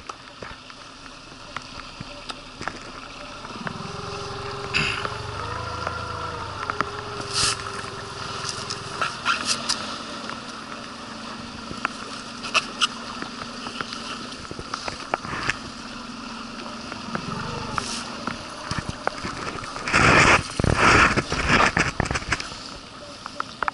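Outboard boat motor running at low revs, its pitch wavering, with scattered knocks and water splashing, and several loud bursts of noise about twenty seconds in.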